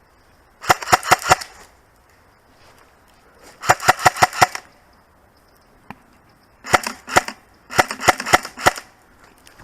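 Airsoft guns firing in four short bursts of rapid shots, each a quick string of sharp cracks, with a single shot between the second and third bursts.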